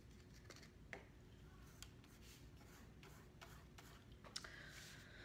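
Near silence broken by faint, irregular light taps as a plastic fork dabs paint onto paper, the sharpest one near the end.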